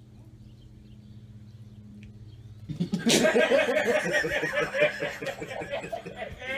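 A person bursts into loud, rapid laughter about three seconds in, after a quiet stretch with a faint low hum.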